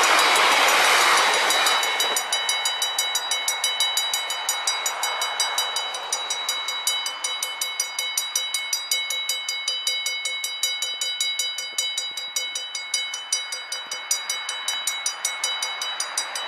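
A passing train's rolling noise, loud and even, dies away about two seconds in. It leaves the level crossing's warning bell ringing in rapid, evenly spaced strokes, about four a second.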